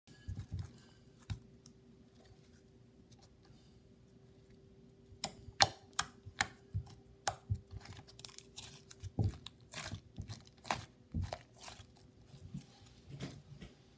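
Pink slime being poked, pressed and squeezed by hand, giving sharp sticky clicks and pops: a few at first, then many in quick succession from about five seconds in.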